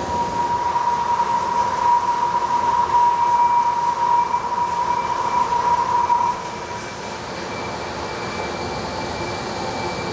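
A 100 mm drill cutting carbon steel on a DMG MORI NHX 10000 horizontal machining centre: a steady, high-pitched cutting whine over the hiss of spraying coolant. About six seconds in, the whine stops and the sound drops to a quieter steady machine-and-coolant noise as the cutting ends.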